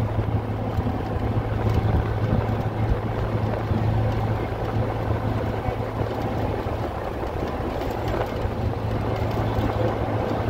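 Steady drone of a moving road vehicle heard from inside the cabin: a constant low engine hum over road and wind noise.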